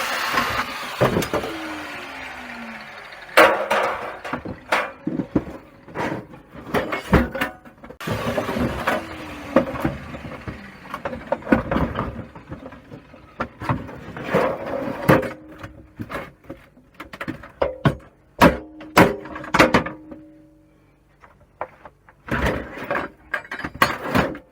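Irregular knocks, clatters and scrapes of a gas combi boiler's parts being pried loose and pulled apart by hand, going quieter in the last few seconds.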